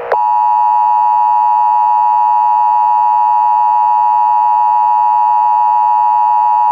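Emergency Alert System attention signal: a loud, steady two-tone alert tone that starts abruptly and holds without a break, with a faint steady beating between its two tones.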